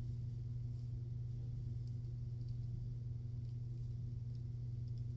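Charcoal Goods Level 2 safety razor cutting through lather and beard stubble on the cheek in short, faint scraping strokes, over a steady low hum.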